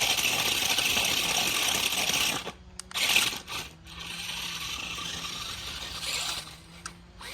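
Radio-controlled monster truck spinning donuts on dirt: the motor and drivetrain whirr with the tyres scrabbling, loud for the first two and a half seconds, then cutting out, with a short burst of throttle about three seconds in and a quieter whirr after.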